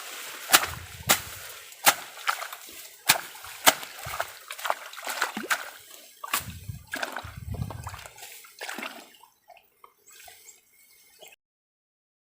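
Water splashing and sloshing in a small stream, with a run of sharp clicks and splashes about one to two a second, as of someone wading or working in the shallow water. The sound cuts off abruptly about 11 seconds in.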